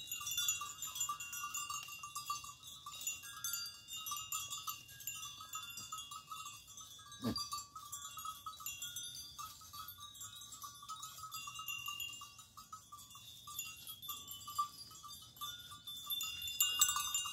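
Small bells on a grazing goat herd clinking on and off, with one sharp knock about seven seconds in.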